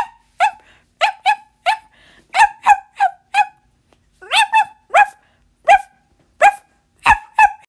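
A person's voice imitating a dog, giving a long run of short barks, some single and some in quick pairs or threes.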